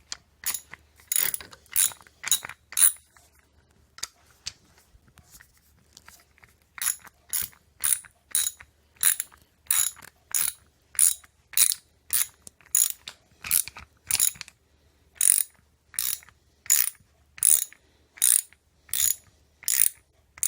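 Hand ratchet wrench clicking in short repeated strokes while a threaded rod is screwed into a hole, roughly one click every 0.7 seconds, with a pause of a few seconds near the start.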